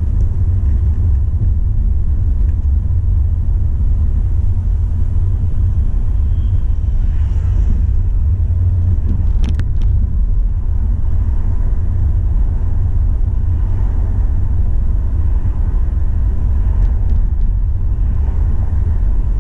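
Steady low rumble of a car driving, heard from inside the cabin, with a single short click about halfway through.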